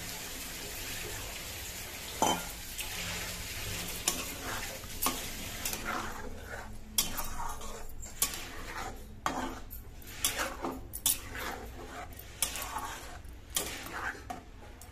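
Masala gravy sizzling steadily in a steel kadai as paneer cubes and their soaking water go in. From about six seconds in, a steel spatula stirs the gravy, scraping and clinking against the pan's sides many times.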